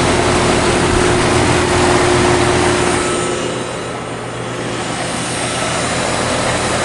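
The outdoor unit of a 2005 Goodman GSH13 2-ton heat pump is running, its 815 RPM condenser fan blowing a steady rush of air over a low, steady hum. The level dips for a second or two about four seconds in. The unit is running in heat with its coil freezing up, which the owner takes for low refrigerant.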